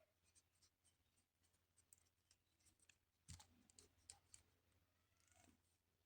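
Near silence with faint, scattered small clicks and taps, one a little stronger about a third of the way in.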